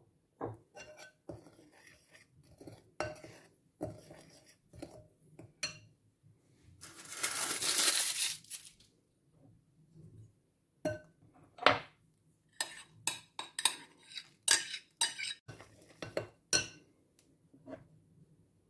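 Dishes and utensils clinking against a glass mixing bowl as small bowls are set down and a spoon is handled, with a steady rush lasting about two seconds near the middle. In the second half comes a quick run of clinks as a spatula stirs batter in the glass bowl.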